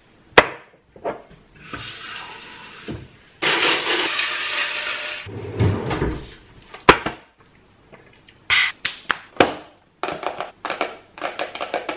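A drinking glass filled with ice and water: a few seconds of rushing, pouring noise, then scattered clinks and knocks of ice and glass on the counter.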